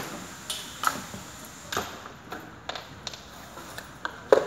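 Irregular clinks and knocks of office chair parts and tools being handled during assembly, about eight sharp strokes, the loudest just before the end.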